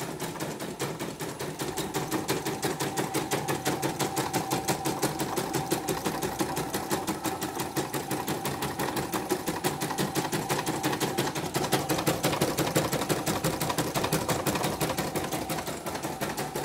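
CNY computerized embroidery machine stitching a design, its needle mechanism clacking in a rapid, even rhythm. It runs steady on a cracked timing belt that was left unreplaced; the technician calls its sound now a stable "krak-krak-krak".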